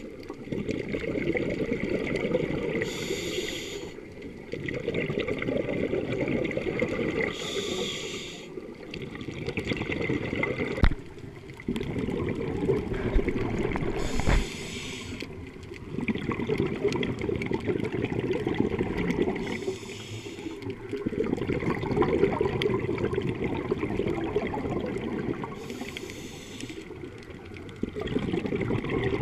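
Scuba diver breathing through a regulator, heard underwater: about five breaths, each a short inhale hiss followed by several seconds of exhaled bubbles. Two sharp knocks near the middle.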